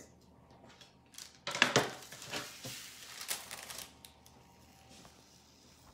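Paper crinkling and rustling with light knocks as a paper-lined baking tray is handled, loudest from about one and a half to four seconds in.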